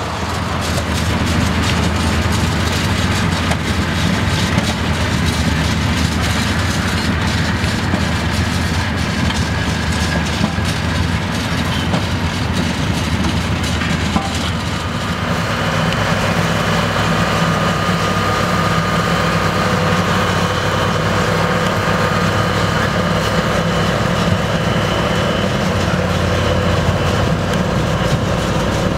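Sugar beet harvester and beet truck running together: steady diesel engine hum with the rattle of the harvester's elevator as it loads beets into the truck. The engine sound shifts about halfway through.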